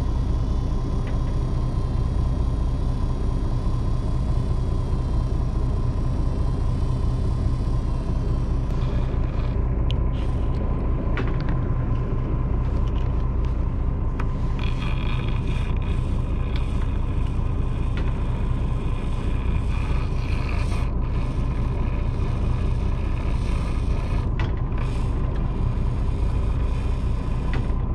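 Fishing boat's engine running steadily, a loud low rumble with a faint steady tone over it. Light scrapes and ticks come and go from about a third of the way in.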